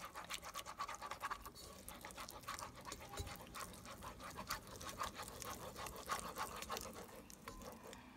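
Silicone-coated whisk stirring a thick butter, flour and milk sauce in a nonstick pot: faint, quick, repeated scraping strokes that stop near the end.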